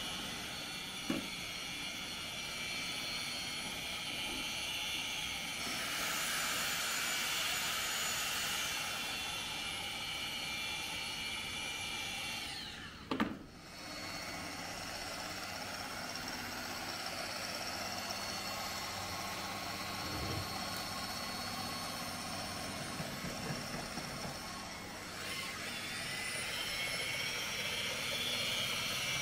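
Electric machine polishers running on a car's paint, a steady high motor whine. It cuts out briefly about thirteen seconds in, and its pitch rises near the end.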